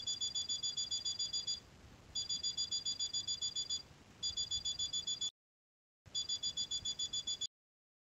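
A 5 V buzzer driven by an Arduino Uno sounds a rapid string of short, high-pitched beeps, about seven a second (on 70 ms, off 70 ms). The beeping comes in four bursts of one to two seconds each, as the float switch is triggered: the alarm that the water level has been reached.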